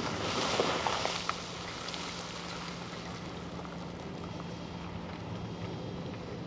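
Dirt and rock pouring out of a Monighan 9W walking dragline's bucket, a rushing with a few knocks of falling rocks, for about the first second and a half; then the dragline's machinery hums steadily as it swings the emptied bucket.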